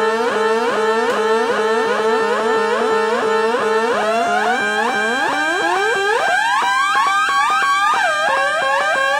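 Homemade Negistor synth circuit on a breadboard, an LFO driving its oscillators: layered electronic tones warbling in a repeating pitch swoop about three times a second. About five seconds in, the lower tones drop out and the pattern shifts up as a potentiometer is turned. It ends in held tones with slower swoops.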